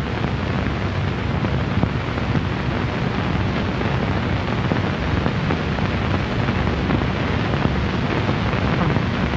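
Steady hiss and rumble of a worn early optical film soundtrack, with no dialogue or distinct sound over it.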